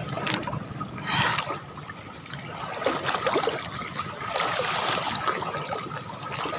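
Shallow water sloshing and splashing in uneven surges as a hand gropes under a cast net spread over a rock, feeling for trapped tilapia.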